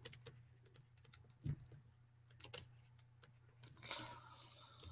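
Near silence with a few faint, scattered clicks of a computer keyboard over a steady low hum, and a brief soft rustle about four seconds in.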